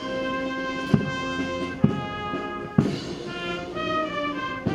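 Slow orchestral music led by brass, with held notes and a heavy drum stroke about once a second.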